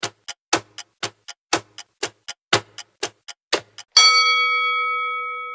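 Quiz countdown-timer sound effect: a clock ticking about four times a second, alternating louder and softer ticks. About four seconds in, as the countdown runs out, a single bell ding signals time up and rings out slowly.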